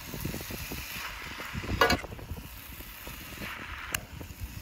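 Wind rumbling on the microphone while pasta is mixed by hand in a cast iron skillet, with a short pitched chirp about two seconds in and a sharp click near the end.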